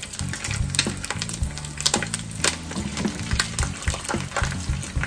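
Boiled pork belly slices frying in hot cooking oil in a pan: a steady sizzle full of irregular pops and spatters.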